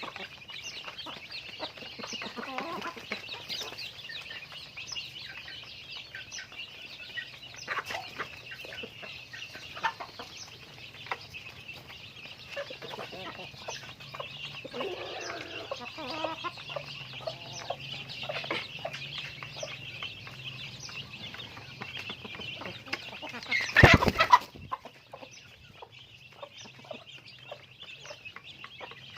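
A flock of chickens clucking and calling steadily, with one brief, much louder call about three-quarters of the way through.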